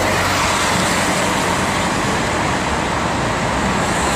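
City street traffic with buses driving past: a steady, loud road noise.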